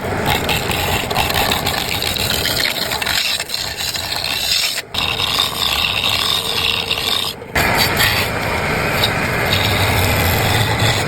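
Continuous scraping and rasping of a tool working wood, shaping a log, broken by two abrupt brief dropouts.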